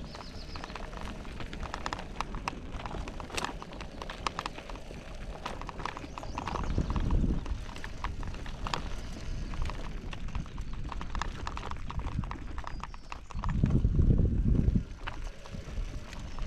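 Footsteps crunching on a dirt and gravel logging road at a steady walking pace. Twice, about seven and fourteen seconds in, a louder low rumble on the microphone.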